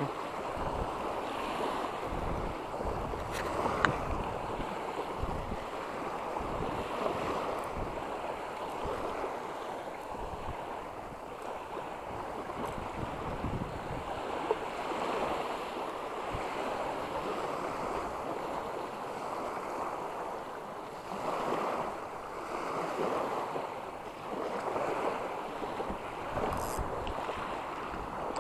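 Small waves washing and breaking onto a sandy shore, rising and falling in surges, with a couple of louder washes near the end. Wind buffets the microphone.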